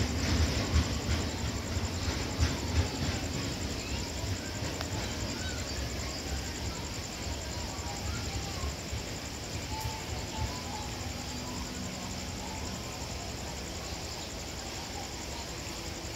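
A freight train of cement tank wagons rolls away, a low rumble with wheel knocks that fades over the first few seconds. It leaves a steady background with faint insect chirps.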